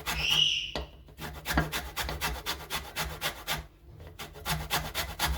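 Lemon rind being rubbed over a hand grater to take off the zest: quick, rhythmic rasping strokes, about six a second, pausing briefly about a second in and again near four seconds. A short high-pitched squeak sounds right at the start.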